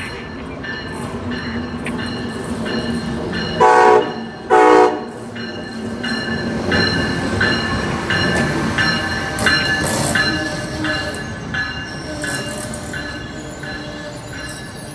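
Amtrak ACS-64 electric locomotive sounding two short horn blasts, a "toot toot", about four seconds in. The Northeast Regional train then passes at speed, its wheels clattering in a steady rhythm of about two beats a second.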